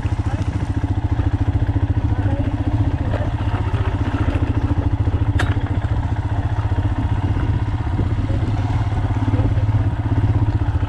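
Motorcycle engine running steadily under way with a fast, even pulse, heard close up from the handlebars while riding over a stony gravel track. A single sharp click comes about five seconds in.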